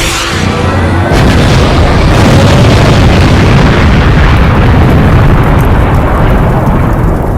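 Loud bomb-explosion sound effects: booming blasts that merge into one continuous heavy rumble, with a fresh blast about a second in.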